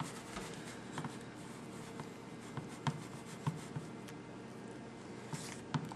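Frosting being stirred in a plastic bowl: soft scraping and rubbing with scattered light clicks and taps of the utensil against the bowl.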